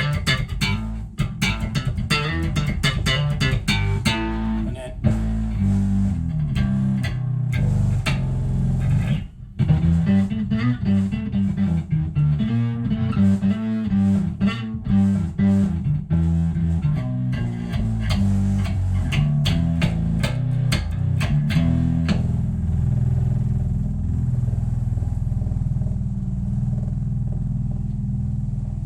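Short-scale electric bass played through fuzz and sub-octave synth pedals: hard, fast-plucked notes for the first few seconds, dug in to bring more clean bass through the synth tone, then a moving low bass line, ending on one long held low note from about 22 seconds in.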